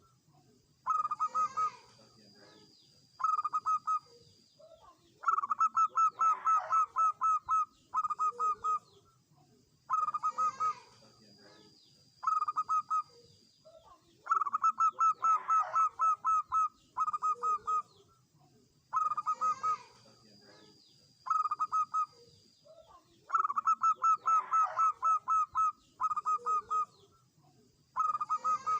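Zebra dove (perkutut) singing: phrases of rapid, short staccato coos that come again every two to four seconds.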